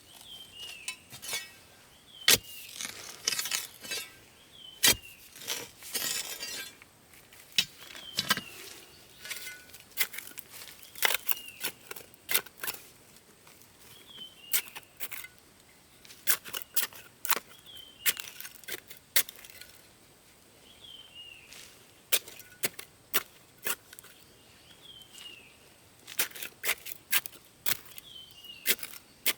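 Sharp, irregular knocks and clinks, like hand work with tools, with a short falling chirp repeating every few seconds.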